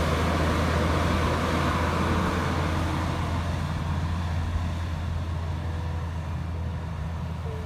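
Diesel engine of a tractor-trailer fuel tanker truck pulling through a hairpin bend, a steady low engine note that slowly fades as the truck moves away.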